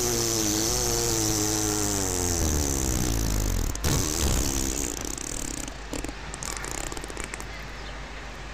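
The unexplained 'strange sound' recorded over Kiev: a loud, drawn-out droning groan with several pitches together, wavering and slowly falling, over a low rumble. About four seconds in it cuts off suddenly, leaving quieter background noise with a few scattered clicks.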